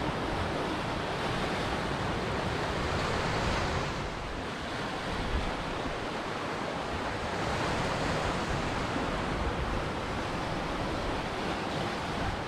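Ocean surf washing in a steady rush that eases about four seconds in and swells again a few seconds later.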